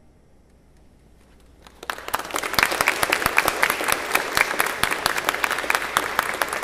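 A short hush after the music ends, then a small audience starts applauding about two seconds in and keeps clapping.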